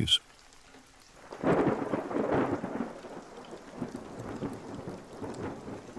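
Rain-and-thunder ambience: a roll of thunder swells about a second and a half in and slowly dies away over a faint steady hiss of rain.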